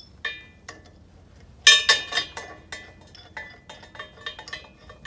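Sharp metallic clinks and ringing taps as the handle of a small red frame press is fitted and worked, with a Rotax 912 ULS gearbox held in the press. The clinks come irregularly, several a second, and the loudest cluster is about a second and a half in.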